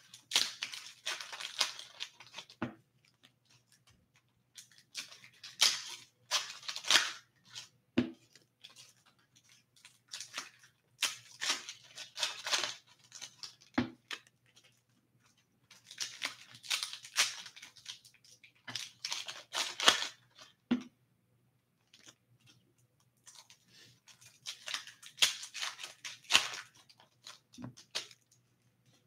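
Trading cards being handled: a stack slid and shuffled through the hands in crisp rustling bursts of a couple of seconds, about every five or six seconds, each ending in a soft knock as the stack is tapped or set down on the table mat.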